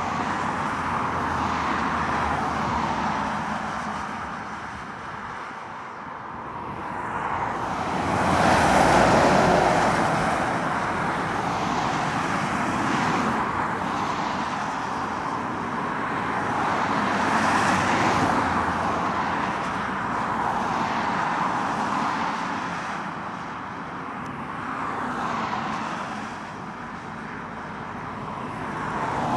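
Road traffic: lorries, vans and cars passing one after another, their tyre and engine noise swelling and fading, with the loudest pass about nine seconds in and another around eighteen seconds.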